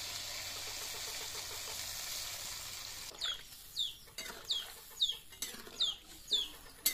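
Water poured into a hot iron kadai of spiced brinjal, sizzling for about three seconds. Then a metal spatula scrapes and knocks the pan while a chicken calls over and over, high falling notes about two a second.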